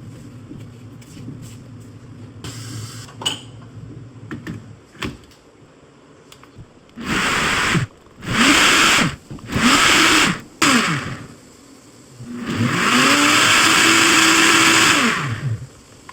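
A small electric kitchen appliance motor, like a blender, is run in three short pulses, its pitch rising as it spins up and falling as it stops each time. It is then run steadily for about three seconds. Before it there is a low hum with a few light clicks.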